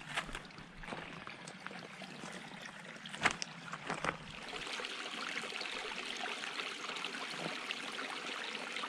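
Small shallow creek trickling over stones as a steady hiss, a little louder from about halfway through, with a few sharp clicks in the first half.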